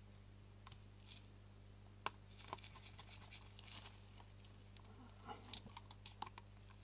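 Near silence: a few faint clicks and light scratches of small lens-shutter parts and tools being handled while a part is fitted, over a steady low hum.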